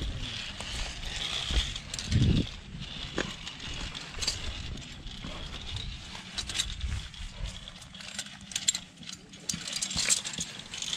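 Wind buffeting the microphone in uneven gusts, the strongest about two seconds in, with scattered sharp clicks and knocks of climbing gear.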